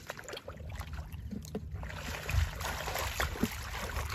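Water sloshing and mud squelching as a person wades along a shallow muddy ditch and gropes through the water by hand, over a low rumble.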